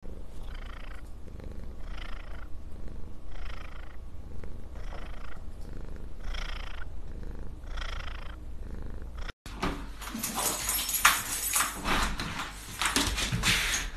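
A house cat purring close to a microphone, a steady low rumble with a soft swell of breath about every second and a half. About nine seconds in the sound cuts out briefly and gives way to a louder, rougher run of crackles and knocks.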